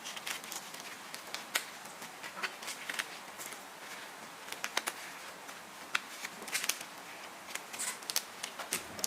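Irregular small clicks and plastic rustles from handling the scooter's wiring while the wires are bundled together and cable-tied.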